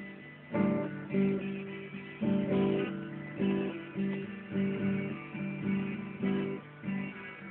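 Twelve-string acoustic guitar being played: a repeated riff of struck chords with ringing notes, under two strikes a second, starting about half a second in.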